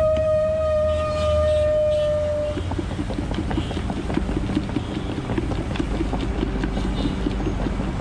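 A long, steady horn note with a slight downward drift, ending about two and a half seconds in. Then a capped plastic jar of cut guava pieces and spice mix is shaken hard, a fast run of knocks and rattles, over a low rumble of traffic.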